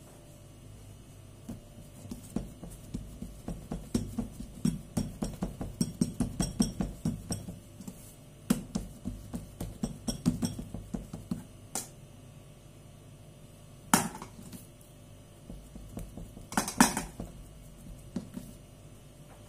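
Fingers patting and pressing a ball of yeast dough flat on a wooden board: a rapid run of soft taps, several a second, for about ten seconds. It is followed by a few sharper, isolated clicks and clinks near the end.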